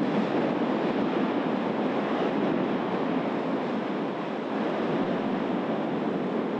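Strombolian eruption of Yasur Volcano: a steady, dense rushing of gas and lava spatter jetting from the crater vent, easing a little near the end.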